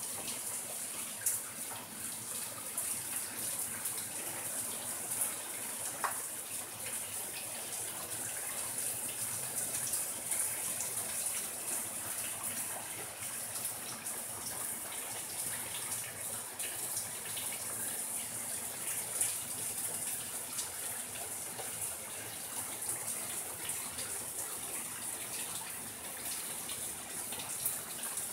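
Steady rain falling on a shadehouse and hanging orchid plants: an even hiss with many small drop taps.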